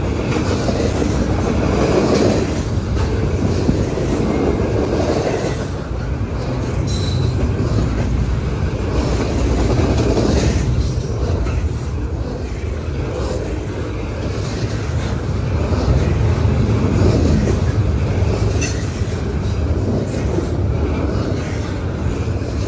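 Double-stack intermodal well cars of a freight train rolling past close by: a steady loud rumble and clatter of steel wheels on rail, with a brief high squeal about seven seconds in.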